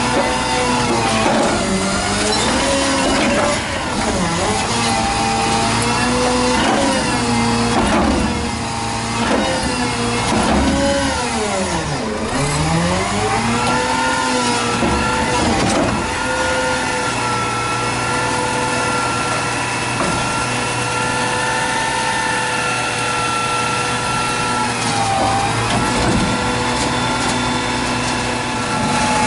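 A compressed-natural-gas front-loader garbage truck's engine and hydraulics revving up and down to work the lift arms, dumping a container over the cab into the hopper. The pitched whine swings up and down, drops sharply and climbs back about twelve seconds in, then holds fairly steady.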